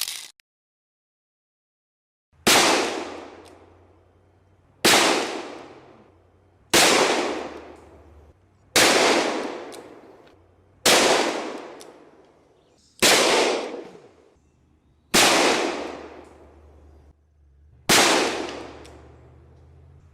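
.357 Magnum handgun fired eight times, single shots about two seconds apart, each with a long echoing tail that fades out. A short click sounds at the very start.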